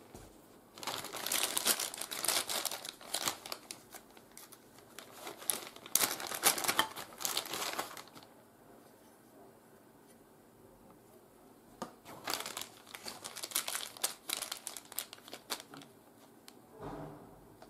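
Clear plastic accessory bags crinkling as hands open them and pull out the parts inside. The rustling comes in three bursts with pauses between them, and there is a soft low bump near the end.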